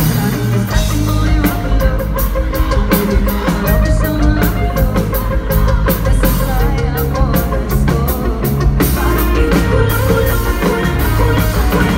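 Live rock band playing: a woman singing lead over electric guitar and a drum kit, with a steady drum beat.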